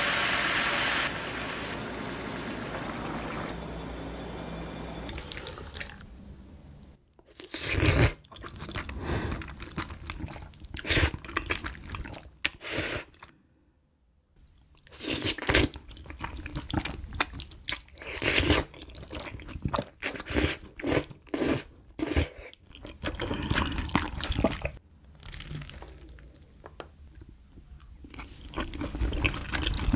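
Close-miked eating sounds of a person eating spicy mapo tofu with rice and noodles: irregular wet chewing, smacking and crunching. It opens with a few seconds of steady rushing noise before the chewing starts.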